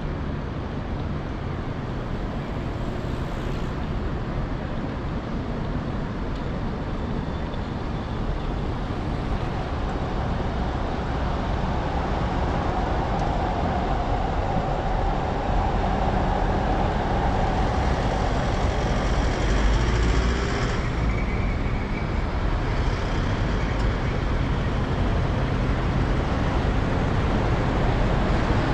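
City street traffic: a continuous hum of cars and other road vehicles passing, growing gradually louder, with a humming vehicle passing through the middle stretch.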